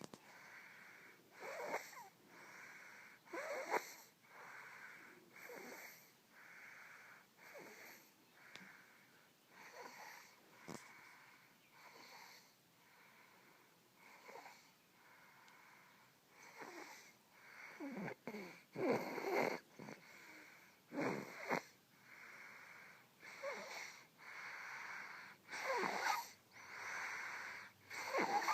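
Sleeping twins snoring, one breath every second or two in an uneven rhythm. The breaths grow louder after about sixteen seconds, and some carry a whistle that falls in pitch.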